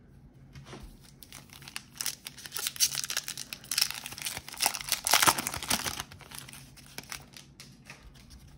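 Foil wrapper of a Topps baseball card pack being torn open and crinkled. The crackling is loudest for a few seconds in the middle, then dies down.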